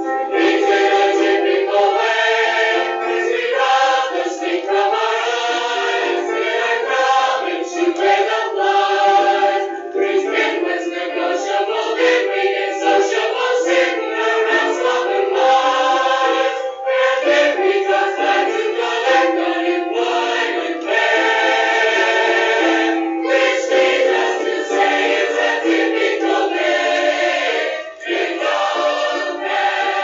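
A chorus of voices singing with music, in a recording with almost no bass.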